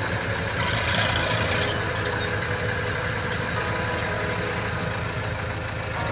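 New Holland 3037 tractor's diesel engine running steadily while the tractor creeps forward with its tipping trolley raised, dumping its load. A brief rush of hiss lasting about a second comes early in the sound.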